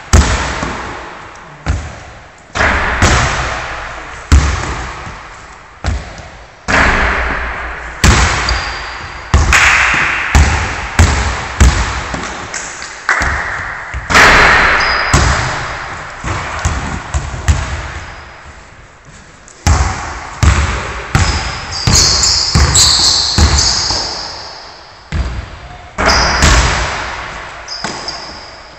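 A basketball bouncing on a wooden gym floor and striking the rim and backboard during three-point shooting, each impact echoing in the large hall. There are several bounces and shots, with a few high sneaker squeaks about two-thirds of the way in.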